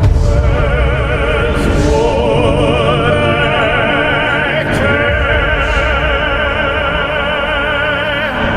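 Dark ambient drone music: a dense low drone under several held notes that waver with a strong vibrato, like operatic singing.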